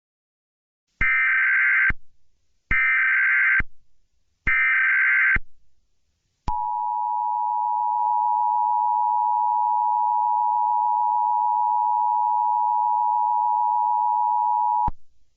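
Emergency Alert System header: three short buzzing blasts of digital SAME data, each about a second long, followed by the two-tone attention signal held steady for about eight seconds before it cuts off.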